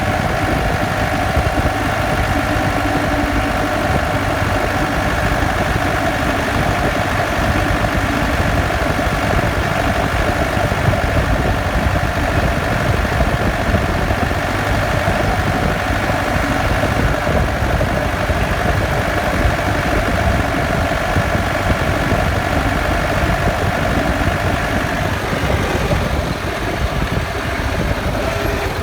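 Land Rover Defender running, with a steady whine over the engine and driveline rumble that eases off near the end; the owner takes it for differential whine, rattle and grinding that began after the vehicle was lifted.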